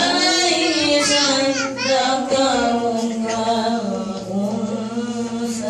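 A voice chanting a slow, drawn-out, wavering melody through a microphone, in the style of Islamic devotional chanting.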